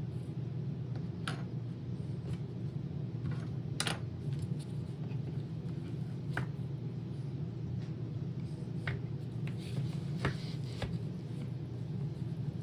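Hard plastic parts of a Roomba robot vacuum being handled during disassembly: scattered clicks and knocks, about six in all, over a steady low hum.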